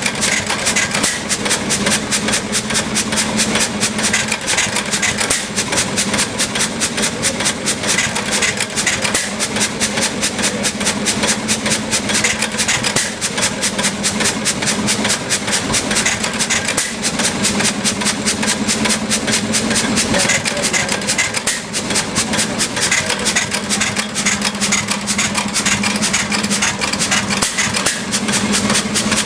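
Amanco 8 HP Mule Team hit-and-miss stationary petrol engine running steadily, with a fast, even mechanical clatter.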